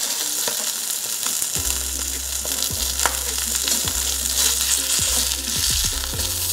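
Sockeye salmon fillet sizzling steadily in hot olive oil in a cast iron skillet, searing skin side down. About a second and a half in, quiet background music with a slow, regular beat comes in under the sizzle.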